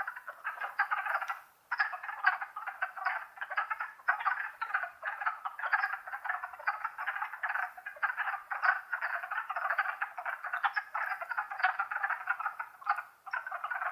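Wood frog breeding chorus: many frogs giving short, rapid calls that overlap into a dense, continuous chorus, thinning briefly about a second and a half in and again near the end.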